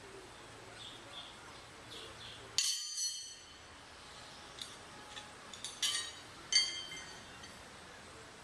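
Several brief, bright clinking strikes that ring on for a moment, like a chime or glass being struck. One comes about two and a half seconds in and a quick cluster follows a few seconds later, over a faint steady outdoor background.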